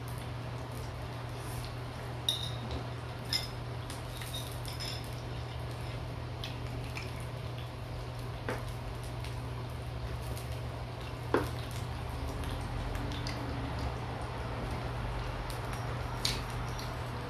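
Eating sounds: chewing grilled skewer meat, with a few short sharp clinks of utensils against dishes, over a steady low hum.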